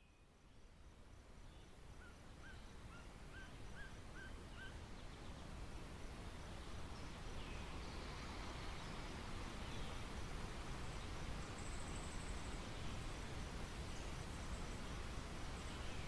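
Outdoor nature ambience fading in: a steady rushing noise with a quick series of about six small bird chirps a few seconds in.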